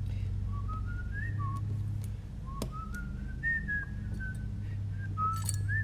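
A person whistling a tune in short, stepping notes over a steady low hum, with a single sharp click about two and a half seconds in.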